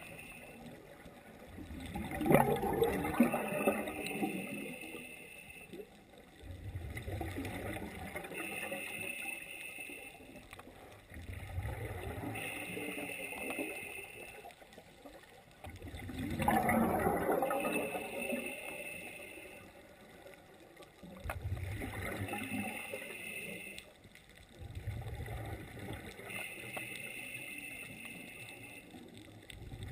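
Scuba regulator breathing underwater, in regular cycles of a few seconds: a hiss as the diver inhales through the demand valve, then a gurgling rush of exhaled bubbles. Two of the exhalations, a couple of seconds in and about halfway through, are louder than the rest.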